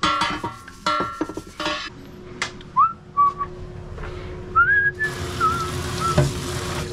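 Metal hand tools clinking and ringing against each other for the first couple of seconds, then a person whistling a few short, wavering notes. About five seconds in, a sink tap starts running water into a steel basin, a steady hiss.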